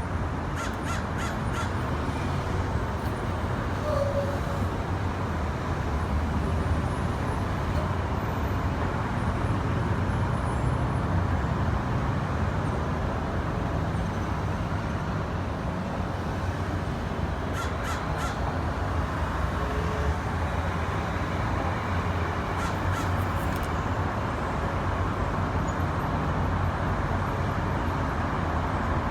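Crows cawing now and then over a steady rumble of road traffic, with brief runs of sharp clicks about a second in, around two-thirds through, and once more a little later.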